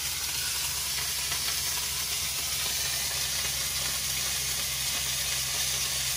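Food sizzling in a wok on a gas hob: a steady frying hiss, over a low steady hum.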